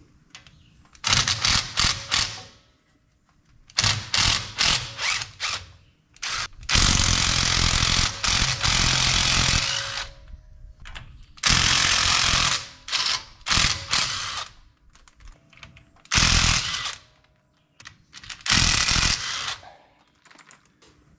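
Cordless impact driver hammering in about seven bursts, the longest about three seconds near the middle, as it breaks loose the nuts on a rear-axle drum-brake backing plate.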